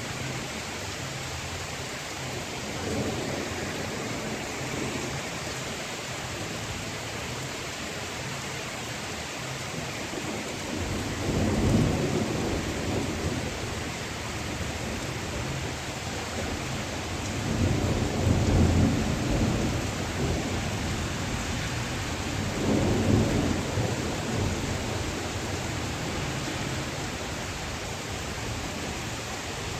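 Steady rain with thunder rolling in several times: a faint rumble about three seconds in, louder ones around twelve and twenty-three seconds, and the loudest around eighteen seconds.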